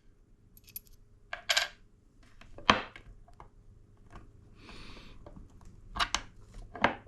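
Small metal ratchet and bit-holder parts clinking and tapping against each other as they are handled, a few separate clinks with the loudest about a third of the way in, and a brief scraping noise a little past the middle.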